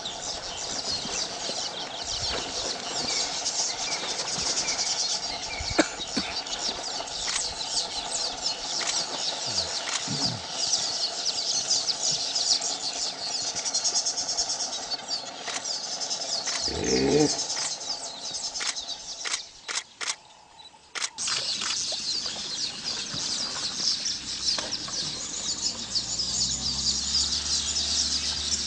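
Outdoor wildlife ambience: a dense, continuous high-pitched chirping chorus. A short, louder low call stands out about two-thirds of the way through, the sound drops out briefly soon after, and a low steady hum comes in near the end.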